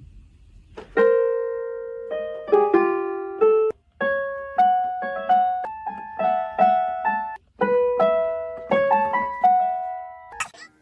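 Piano melody played note by note, each note fading after it is struck, with two short pauses along the way and a brief click near the end.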